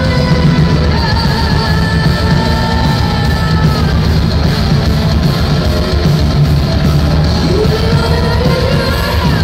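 Symphonic metal band playing live: a female lead vocal holds long notes over distorted electric guitars, drums and keyboards, with a rising glide in pitch near the end.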